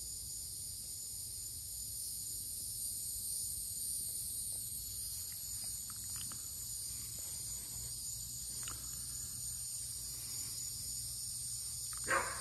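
Steady high-pitched chorus of evening insects: several overlapping level tones. A few faint ticks fall in the middle, and one short louder sound comes near the end.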